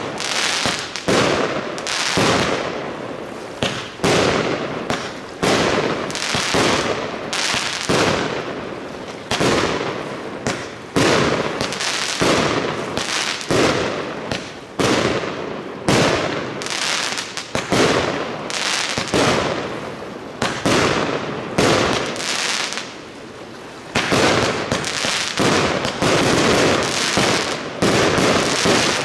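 Aerial fireworks bursting overhead in a continuous barrage of loud bangs, often several a second, with crackling between them. There is a short lull about two-thirds of the way through, then the barrage picks up again.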